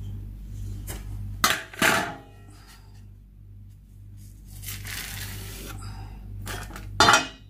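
Kitchen utensils being handled while a layered cake is assembled: two sharp metallic clanks with a short ringing about a second and a half in, a rustle in the middle, and another loud clatter near the end, over a low hum.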